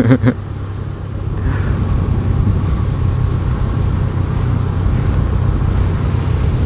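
Motorcycle riding noise heard from the rider's microphone: a steady low engine and road rumble with wind buffeting the mic, growing louder about a second in and then holding steady.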